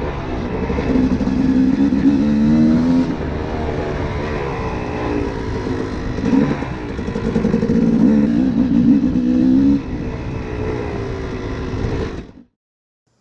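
KTM 250 two-stroke dirt bike engine revving and easing off over and over as it is ridden along a trail, its pitch rising and falling. It cuts off suddenly near the end.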